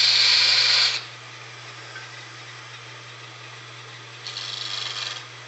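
Wood lathe running with a steady low hum while a parting tool cuts into a small spinning wood blank: one loud cut for about a second at the start, then a second, quieter cut about four seconds in.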